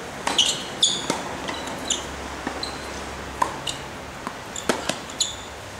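Tennis rally on a hard court: sharp hits of racket strings on the ball and ball bounces at irregular intervals, with several short high squeaks from shoes on the court surface.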